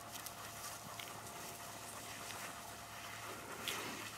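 Faint footsteps and rustling through dry grass, with a few light clicks.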